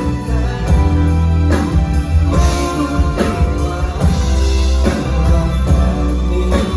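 Live pop band music with strong bass and a regular beat, from a concert performance of a Thai pop song.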